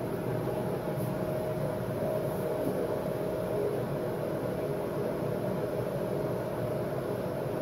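Steady mechanical hum with an even rushing noise and a faint steady tone underneath, like a running fan or motor.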